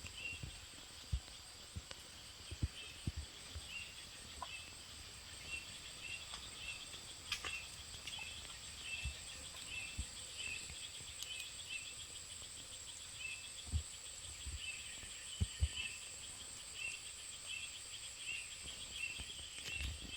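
Forest insects: a steady high-pitched drone with a short chirp repeating about twice a second, and a few faint low thumps.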